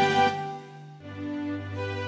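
Background music of held notes; it fades about half a second in and a new, softer phrase begins about a second in.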